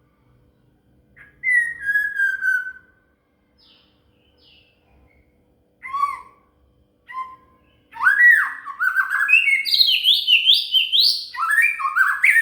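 A songbird singing in clear whistled notes. A long falling whistle comes about a second in, then a few short calls around six and seven seconds, then a fast run of varied rising notes from about eight seconds on.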